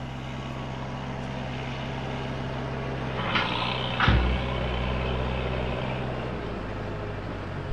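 A vehicle engine running steadily at idle, with a short rattle about three seconds in and a sharp knock with a low thud about a second later.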